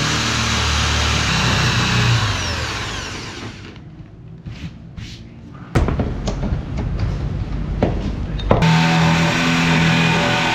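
Corded electric drill with a hinge-cup boring bit cutting into a white plywood cabinet door, then winding down with a falling whine. A few sharp clicks follow as a concealed hinge is handled and set into its cup hole, and about two seconds before the end the drill starts again abruptly, boring a wire hole through the cabinet's side panel.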